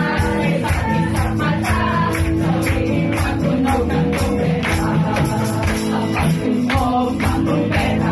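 Upbeat worship song with a steady beat and jingling percussion, a woman leading the singing on a microphone, and the congregation clapping along.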